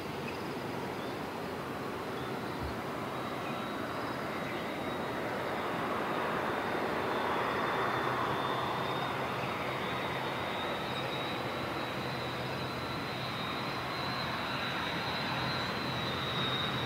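Airbus A330 twin-engine jet on final approach, its engines a steady noise growing slowly louder as it nears, with a thin high whine coming in partway through.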